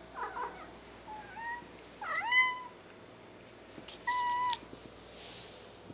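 A cat meowing three times: a short quiet call, then a loud meow that rises and holds about two seconds in, and another steady meow about four seconds in.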